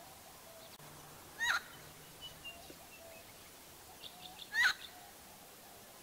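Helmeted friarbird (koak-kaok) calling: two loud, short, harsh notes about three seconds apart, with a few softer short notes in between.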